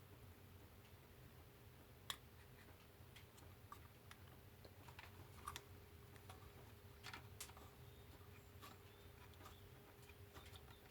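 Faint, scattered small clicks and taps of a screw and screwdriver being worked into a chainsaw carburettor mounting while trying to get the screw to catch. The sharpest click comes about two seconds in, over a low steady hum.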